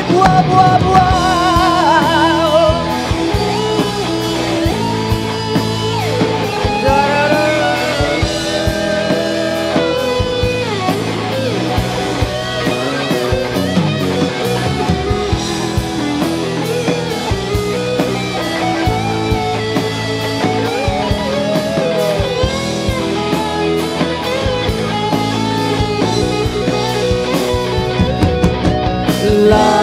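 Live rock band playing an instrumental passage: an electric guitar lead with bent, wavering notes over bass and drums.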